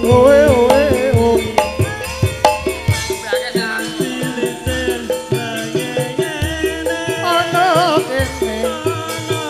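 Javanese gamelan music: struck metal keys ringing in a steady beat over low drum strokes. A high, wavering, ornamented singing voice comes in just after the start and again near the end.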